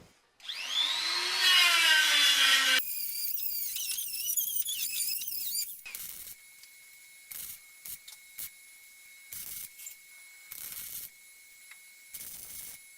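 A handheld power tool spins up with a rising whine and works against sheet-metal car bodywork, stripping paint and undercoating; its pitch wavers under load for a few seconds. It is followed by short, separate bursts of hiss over a faint steady high tone.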